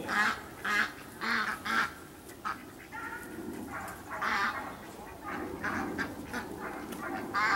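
A flock of domestic ducks quacking: about a dozen short quacks, singly and overlapping, coming irregularly as the ducks are driven along by herding puppies.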